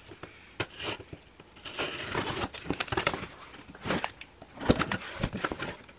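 A knife slitting the packing tape along the seam of a cardboard shipping box, with scraping and crackling tape and irregular small knocks against the cardboard, two of them sharper near the end.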